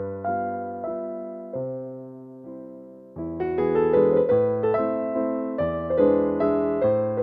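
Background piano music. It thins out and fades until about three seconds in, then comes back louder and fuller.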